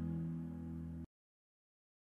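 Background music with held low notes, fading and then cutting off abruptly about a second in, leaving silence.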